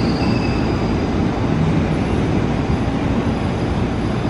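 KRL Commuter Line electric train moving slowly along the platform, a steady rumble of running noise.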